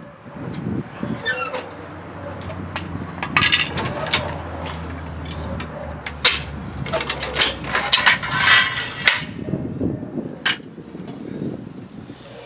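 Steel clanks, knocks and scrapes as a Hi-Lift farm jack is set into a welded steel winch mount and tipped back out, over a low steady rumble.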